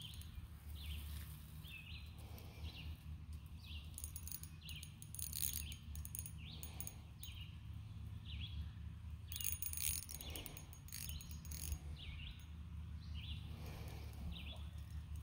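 A bird calling over and over, short falling chirps about once a second, over a steady low hum.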